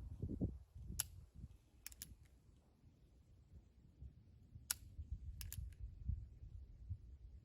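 Quiet sharp metallic clicks from a Heritage Rough Rider .22 single-action revolver, a few single clicks and close pairs as the hammer is worked and falls without a shot going off. These are misfires, which the owner puts down to the firing pin not being pushed fully into the casing.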